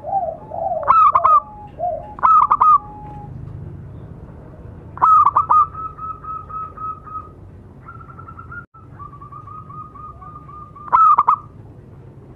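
Zebra dove (perkutut) cooing. Short, loud staccato phrases come about a second in, at about two seconds and near the end. In between are two long runs of quick, even coo notes.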